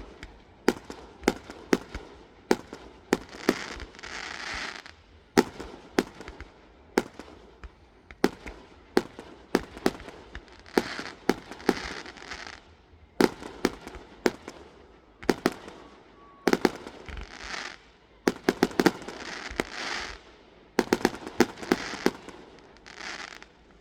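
Fireworks display: a run of sharp bangs from exploding shells, sometimes several in quick succession, with bursts of crackling that last a second or two every few seconds.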